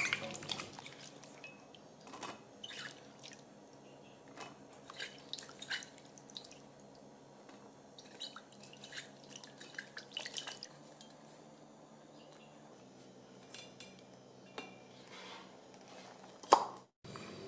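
Water splashing and dripping in a stainless steel bowl as a hand swishes raw cut potato sticks to wash them and lifts them out, in irregular small splashes and drips. A single loud knock just before the end.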